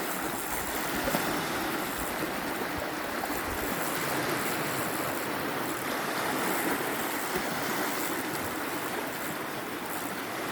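Steady wash of sea water, waves lapping and rushing, with occasional low buffets of wind on the microphone.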